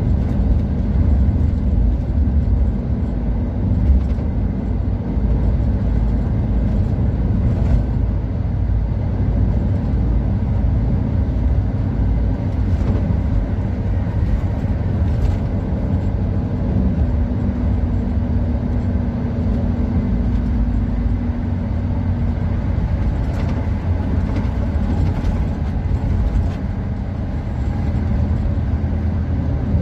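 Steady engine drone and road rumble heard inside a coach's cab while it cruises at highway speed.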